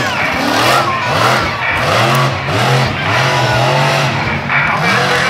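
Monster truck's supercharged big-block V8 engine revving hard and falling back over and over, about twice a second, as the truck is driven through its freestyle run on the dirt.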